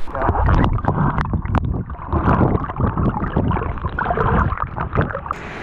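Muffled churning and gurgling of surf water with the camera held underwater, with irregular bubbly crackles. Shortly before the end it opens out into the open hiss of breaking surf as the camera comes up out of the water.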